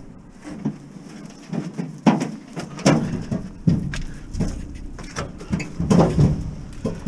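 Knocks and scraping of an old General Electric appliance's sheet-metal cabinet as it is heaved into a car's hatch, a series of about eight irregular bangs.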